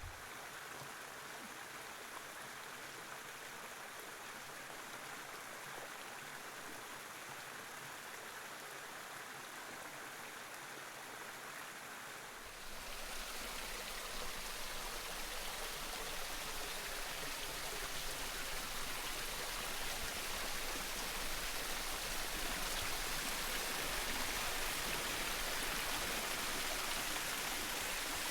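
Small woodland waterfall splashing steadily into a creek. About twelve seconds in the sound gets suddenly louder and fuller.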